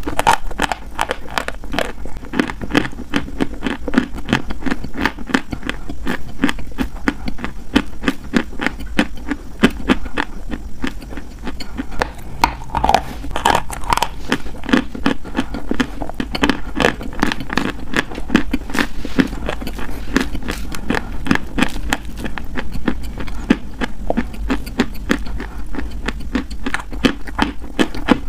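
Close-miked mouth chewing a dry, crumbly white block: a dense, rapid run of crunching and crackling.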